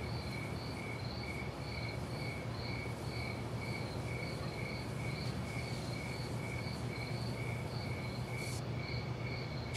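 Night crickets chirping in an even rhythm, about two chirps a second, over a low steady hum.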